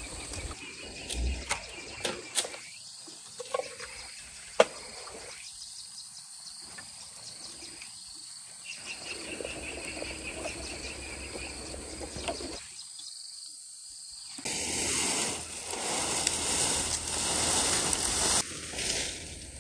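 Outdoor country ambience: a steady hiss of background noise with a few sharp clicks or knocks in the first few seconds and a rapid high chirping near the middle. The noise grows louder about fifteen seconds in.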